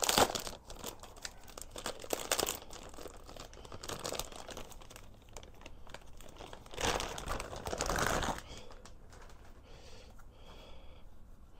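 Clear plastic bag crinkling and rustling in bursts as a boxed power supply is pulled out of it, quieter after about eight seconds.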